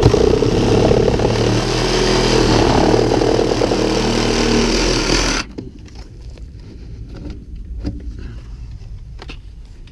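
Cordless reciprocating saw running as it cuts into a 4-inch thin-wall ABS sewer pipe for about five seconds, then stopping suddenly. Light clicks and knocks of handling follow.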